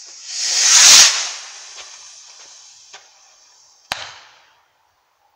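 Firework rocket's fuse fizzing, then the rocket launching with a loud rising whoosh that peaks about a second in and fades as it climbs, with a few faint crackles. A single sharp bang comes about four seconds in.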